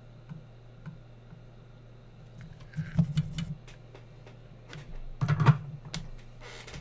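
Light clicks and clatter of hand tools being handled and set down at a workbench, in two short clusters about three and five and a half seconds in, over a steady low hum.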